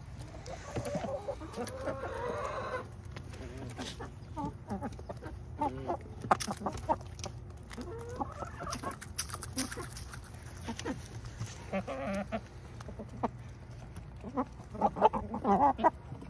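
Backyard hens clucking and calling as they peck dried mealworms from an open hand, with many quick, sharp pecking clicks and a louder run of clucks near the end.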